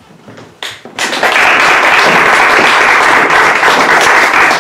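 Audience applauding, breaking out about a second in and holding steady.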